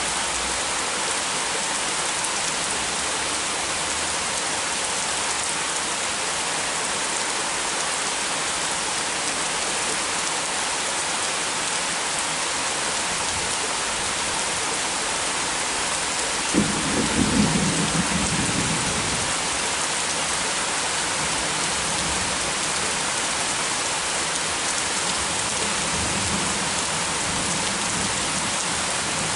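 Heavy rain pouring steadily. About two-thirds of the way through, a sudden clap of thunder cracks and rumbles for a couple of seconds, with a fainter rumble near the end.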